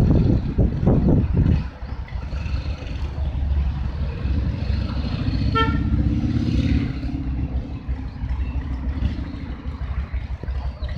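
Harley-Davidson V-twin motorcycle engines running, with loud revving bursts in the first second and a half, then a steady low rumble. A short horn toot about five and a half seconds in.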